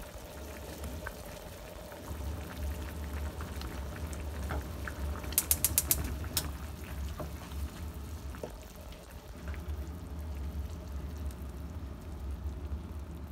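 Tomatillo salsa simmering in a frying pan, bubbling and popping, over a steady low hum. A quick run of sharp clicks comes about five and a half seconds in.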